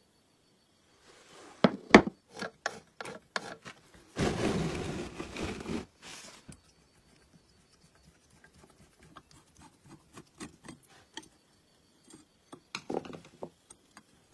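Hand work on old sewing machine parts: a quick run of knocks and clicks, then about two seconds of steady rubbing or scraping, then light scattered ticks and a few more knocks near the end.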